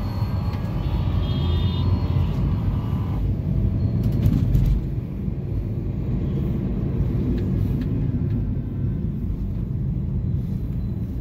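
Inside a Toyota Corolla's cabin while driving in city traffic: low, steady engine and road noise, with a bus running alongside for the first few seconds.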